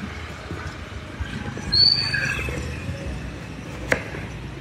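Busy street background noise with a short high-pitched squeal about two seconds in and a sharp click near the end.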